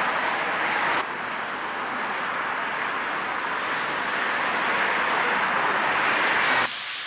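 Steady hiss of distant city traffic, its sound shifting slightly about a second in. Near the end it gives way to sizzling in a frying pan.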